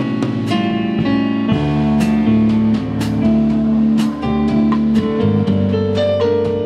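A jazz quartet playing live: drum kit with cymbal strokes, keyboard and a plucked string instrument.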